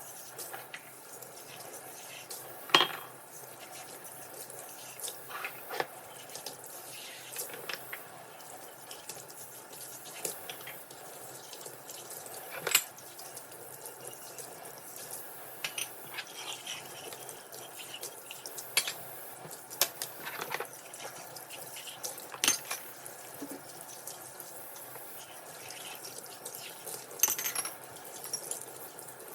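Tap water running into a kitchen sink while dishes are washed, with scattered sharp clinks and knocks of crockery and cutlery.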